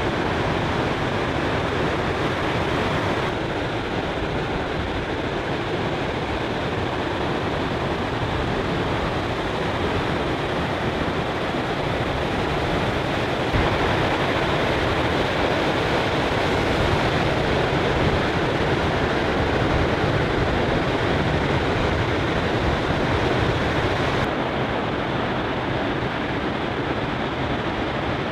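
Ocean surf breaking: a steady, loud rush of crashing waves and whitewater. It changes abruptly in tone three times, at about 3 seconds, midway and near the end.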